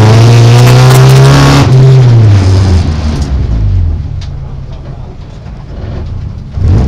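Folkrace car's engine heard from inside the bare cabin, running hard at high revs. There is a brief break in the engine note about two seconds in, then the revs fall and the engine fades as the car slows. A sudden louder sound comes in right at the end.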